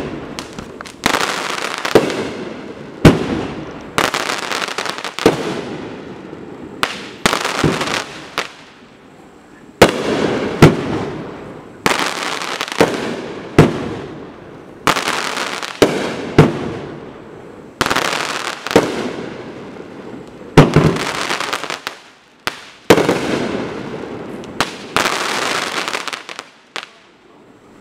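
Dominator Mammoth Crackle 500-gram fireworks cake firing a long volley of crackle shells, about one shot a second. Each shot is a sharp bang followed by a dense, fading crackle of crackling stars. The firing ends near the end.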